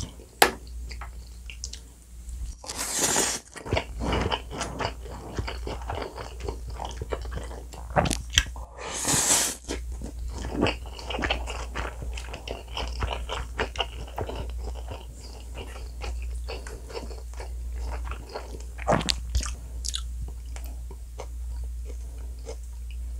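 Close-miked eating of black-bean-sauce noodles (jajangmyeon): continuous wet chewing and mouth clicks, with two long slurps, about three seconds and about nine seconds in.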